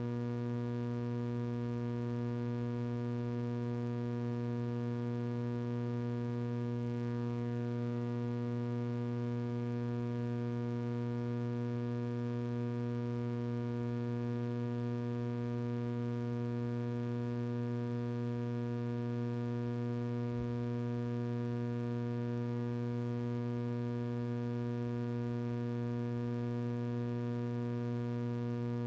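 Steady electrical mains hum with a stack of evenly spaced overtones, holding at an even level with no other sound over it.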